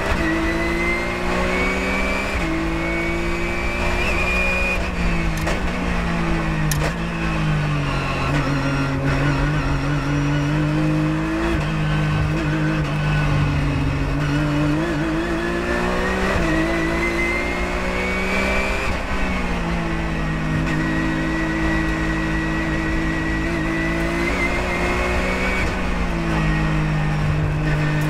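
Porsche 997.1 GT3 Cup race car's flat-six engine at racing speed, heard from inside the cockpit. The revs climb and drop several times as it pulls through the gears, brakes and downshifts for corners, then accelerates out again.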